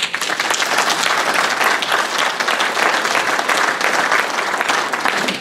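A roomful of seated people applauding, many hands clapping together steadily, in approval of a proposal put to the meeting.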